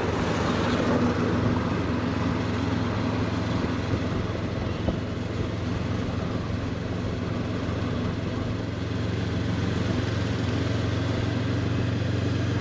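Honda CB500X motorcycle's parallel-twin engine running at a steady pace while being ridden, over a steady hiss of wind and road noise.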